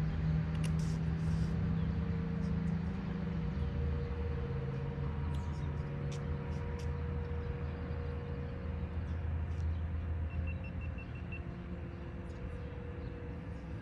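Low, steady engine rumble of a road vehicle running nearby, easing off slightly toward the end.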